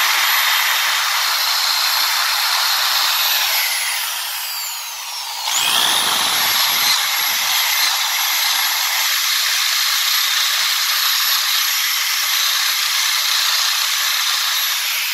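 Electric drill spinning a wire brush against a metal mesh grill grate, a steady scrubbing hiss with a high motor whine, scouring grime off the grate. About four seconds in the drill slows down, its whine falling, then speeds back up and carries on scrubbing.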